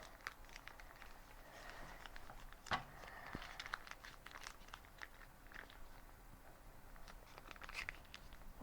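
Faint crinkling and small clicks of a packet of slime gel being squeezed and worked to get the last of it out, with one sharper click a little under three seconds in.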